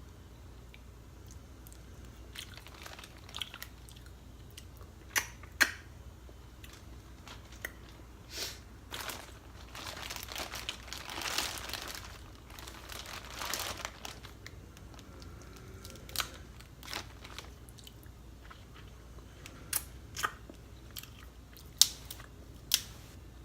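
Snow crab leg shells being cracked and eaten up close: sharp snapping cracks of shell, with chewing and a few seconds of dense crackling in the middle.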